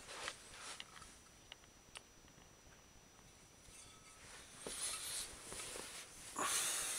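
Handling noise from a small round mirror on a wire stand being turned and set down by hand: a few light clicks and taps, then two louder rustling swishes, the loudest near the end.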